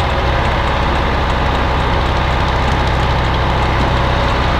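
Heavy machine engine running steadily at idle, a constant low drone.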